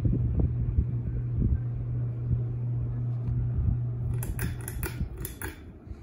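52-inch Belmont palm-leaf ceiling fan running, its motor giving a steady low hum under the whoosh of the blades. About four seconds in the hum stops and a quick series of clicks and rattles follows.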